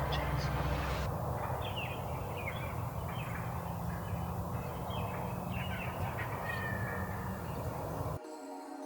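Wild birds calling, many short chirping calls over a steady low background rumble. Near the end the sound cuts off suddenly and music begins.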